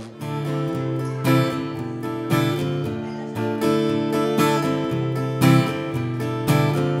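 Acoustic guitar played solo, chords strummed about once a second and left to ring between strokes.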